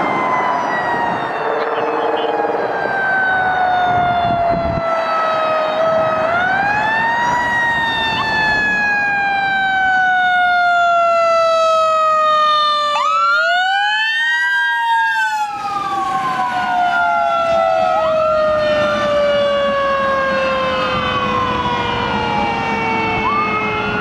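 A fire engine's Federal Q mechanical siren coasts down in long, slow falling moans and is wound back up twice, about a quarter and about half of the way through. From about three-quarters of the way in, an electronic wail siren rises and falls over it as the engine drives past.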